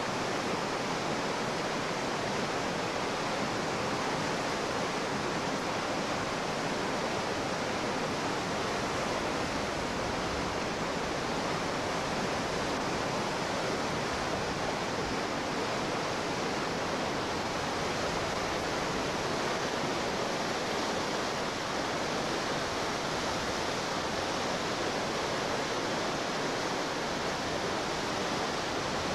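Whitewater rapids rushing steadily, an even, unbroken hiss of churning water.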